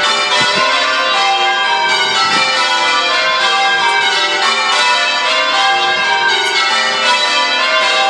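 A peal of eight church bells, medieval bells cast at the Whitechapel foundry, ringing continuously with many strokes overlapping into one dense wash of tones.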